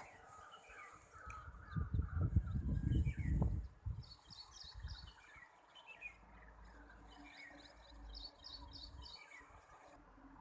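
Small birds chirping repeatedly in short, quick notes. A burst of low rumbling about two seconds in is the loudest sound.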